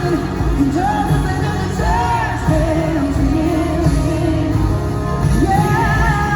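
Live concert performance of a country-pop song: a woman singing the lead over a loud full band, heard from the audience in an arena.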